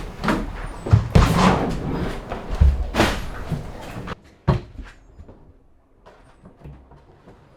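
A run of knocks and thumps, like gear or a hatch being handled on board, with one sharp bang about four and a half seconds in; after that it goes much quieter.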